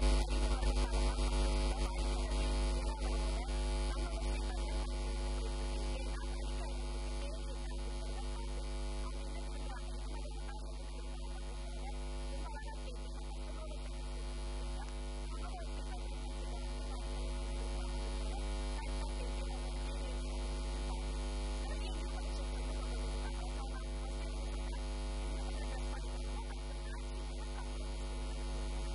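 Steady electrical mains hum: a low, even buzz with a stack of overtones that holds unchanged throughout.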